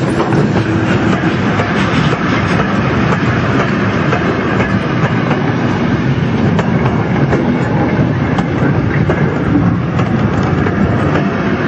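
OO gauge model freight train rolling steadily past close by: the wheels of the loose-coupled coal wagons rumble along the track and click irregularly over the rail joints.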